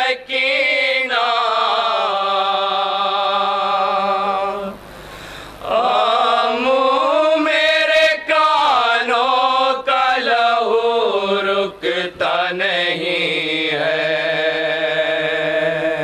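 Men's voices chanting a noha, a Shia mourning lament, unaccompanied, in long held and gliding notes. The chanting breaks off briefly about five seconds in.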